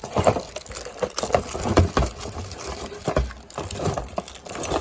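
Plastic packaging crinkling and crackling in irregular bursts as it is pulled off a wrench set, with a few dull handling knocks.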